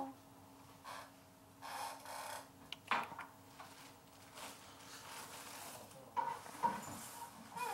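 Faint room noise: rustling and a few light knocks, about three seconds in and again near the end, over a low steady hum that fades out midway.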